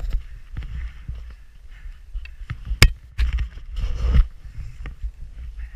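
Skis running through deep powder snow, with wind rumbling on the camera's microphone. A few sharp knocks come through, the loudest about three seconds in.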